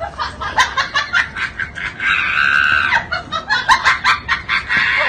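Laughter in rapid high-pitched bursts, with a held shriek lasting about a second, starting two seconds in.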